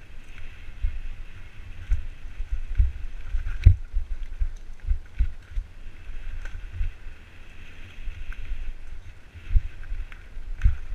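Wind buffeting a helmet-mounted action camera's microphone during a fast mountain bike descent on a dirt trail, over a steady hiss of tyres rolling on dirt. Sharp knocks from the bike hitting bumps come through now and then, the loudest about three and a half seconds in.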